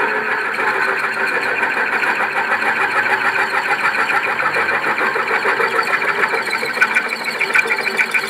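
Bench drill press running with its bit cutting into a steel block: a steady, fast chatter.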